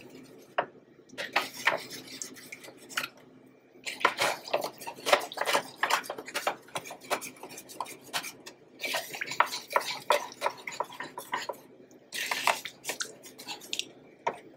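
Metal spoon scraping and clinking against a disposable aluminum foil pan while stirring and turning turkey wings in gravy, in quick, irregular strokes. The strokes thin out briefly a couple of seconds in, then come thick and fast through the rest.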